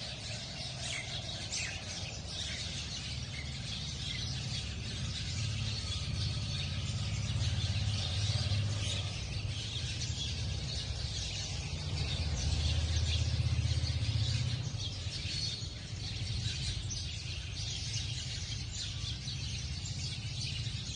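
Sparrows chirping continuously, many short chirps overlapping at once, over a steady low rumble that swells twice.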